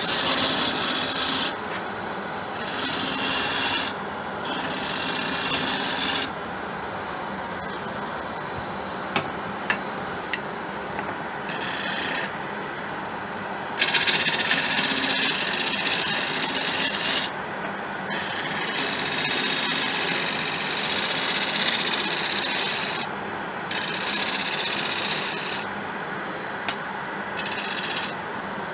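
Bowl gouge cutting the outside of a spinning acacia bowl on a Laguna wood lathe, in a series of shaping passes of one to four seconds each, with the lathe running on between cuts.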